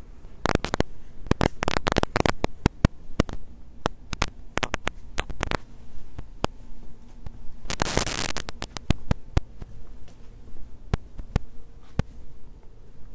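Irregular sharp clicks and crackles, thick in the first few seconds and thinning out later, with a short rush of hiss about eight seconds in, over a faint low hum: handling noise from a handheld camera being moved about.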